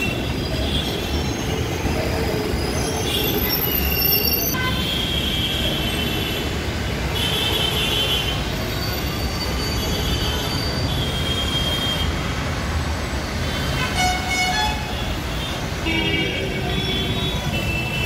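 Passenger coaches of an arriving express train rolling past on the rails, with a steady low rumble and high squealing tones from the wheels that come and go.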